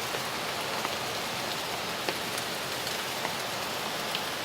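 Steady hiss of rain with the rush of a storm-swollen creek, a few faint ticks scattered through it.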